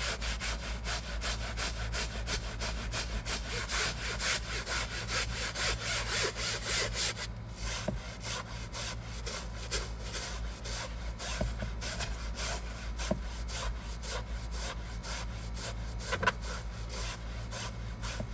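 Hand brush scrubbing a fabric car seat sprayed with cleaning solution: quick, even back-and-forth strokes, with a brief pause about seven seconds in.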